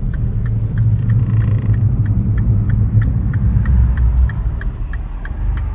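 Car driving, heard from inside the cabin: a steady low engine and road rumble that eases a little near the end, with a faint, fast regular ticking about four times a second.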